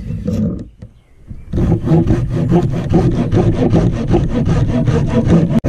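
Folding hand saw cutting through a moss-covered log on a sawbuck. After a short pause the strokes start about a second and a half in and run fast and even, several a second.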